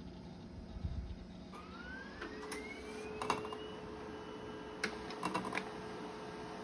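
NeXT laser printer starting a test page: a low thump, then a motor spinning up with a rising whine, settling into a steady hum. Several sharp mechanical clicks come as the intake roller pulls in the paper.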